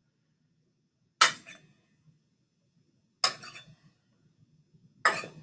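A metal spoon clinking against a bowl three times, about two seconds apart, while scooping cotton balls.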